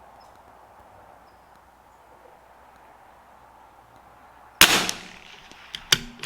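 A single .22 LR rifle shot from a CZ 457 AT-ONE, sharp and loud, about four and a half seconds in after a quiet stretch, followed by a few quick clicks near the end.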